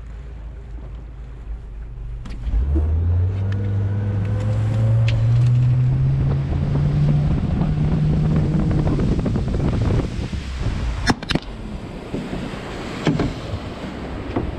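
A small boat's engine throttling up about two seconds in, its pitch climbing steadily as the boat gathers speed, then easing off around ten seconds in, with wind and water rushing past the hull. A few sharp knocks come near the end.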